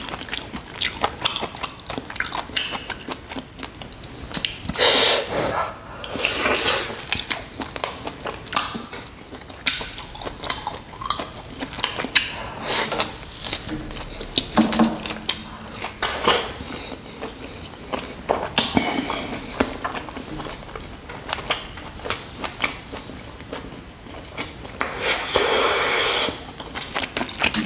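Close-miked eating of mutton nalli (marrow-bone) fry: wet chewing, lip smacks and many small clicks, with a few longer slurps as meat and marrow are sucked off the bone.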